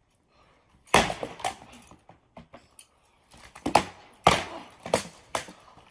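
Practice weapons striking wooden shields and armour in sword-and-shield sparring: sharp knocks, two about a second in, then a quicker flurry of four or five from about three and a half seconds.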